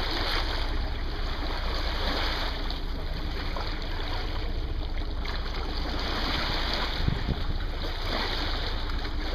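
Sea water rushing and splashing along the bow of a moving boat, a steady even wash with a low rumble underneath.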